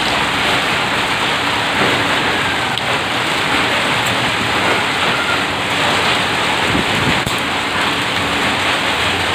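Hailstorm: hail and rain falling hard and steadily on a street, a dense, even patter with no let-up.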